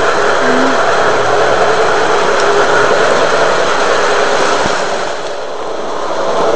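Model train running past at close range: the cars roll over the track with a steady, loud rolling noise, which eases slightly about five seconds in and then picks up again.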